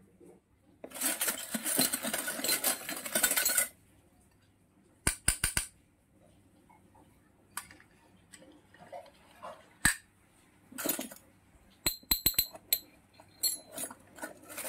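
A few seconds of rustling near the start, then miniature stainless-steel toy kitchen pieces clinking sharply as they are handled and set down, in single clinks and quick clusters of three or four, some with a brief metallic ring.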